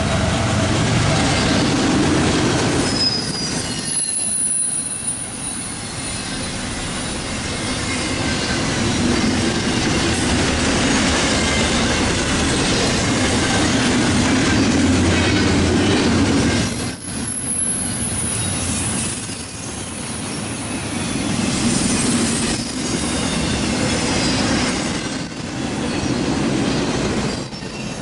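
Intermodal train of loaded container and trailer well cars passing at speed: a steady, loud rumble and rattle of steel wheels on the rails. Thin high wheel squeals come in briefly a few seconds in and again past the middle, and the noise dips for a moment several times.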